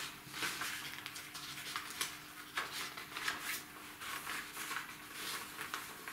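Faint, scattered rustling and small handling noises, with a faint steady hum underneath.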